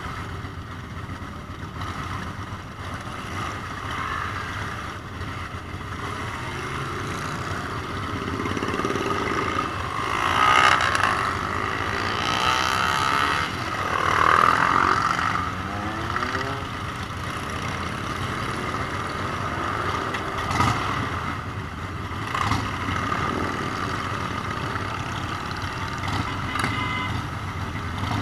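Motorcycle running on the road, heard from on board, with steady engine and road noise. About ten to fifteen seconds in it gets louder for a while, with sweeping, falling sounds.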